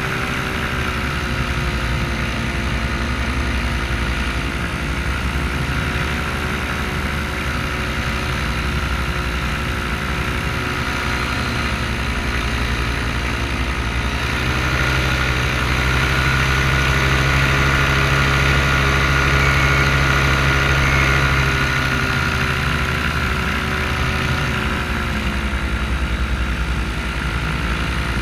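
Paramotor engine and propeller running steadily behind the pilot, growing louder for several seconds about halfway through as it is throttled up, then easing back.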